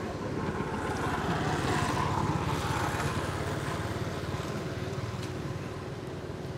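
A motor vehicle passing on the road, growing louder to a peak about two to three seconds in and then slowly fading, over a steady low rumble.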